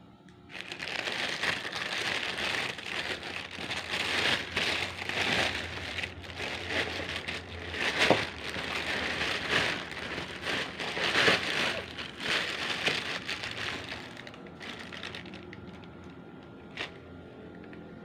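Plastic courier mailer bag and packaging crinkling and rustling as it is opened, dense and irregular for about fourteen seconds, then quieter handling with a single click near the end.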